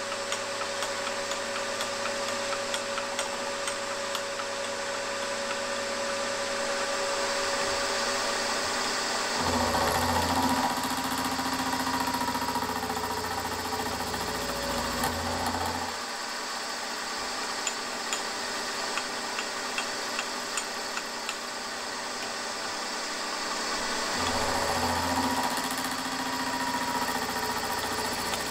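Milling machine end mill cutting a pocket in a small metal part: a steady machine tone with light ticks of cutting, its pitch shifting every several seconds.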